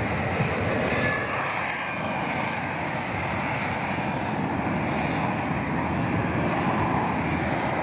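F-35B Lightning II's jet engine, a steady, dense rush of noise with no clear rise or fall in pitch.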